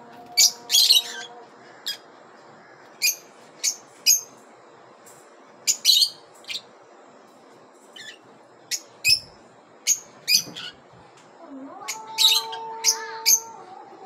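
Rosy-faced lovebirds giving short, shrill, high chirps, singly and in quick pairs, about one a second, with a pause of a second or so around the middle.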